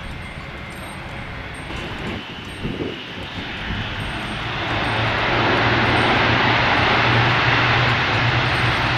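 Four-engine military turboprop transport aircraft. Its engine and propeller sound grows louder from about four seconds in, then holds loud and steady with a low, even propeller drone under a wide rush.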